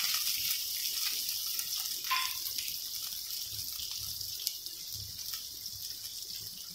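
Sliced onions sizzling in hot ghee in a steel pan, a steady hiss that slowly fades.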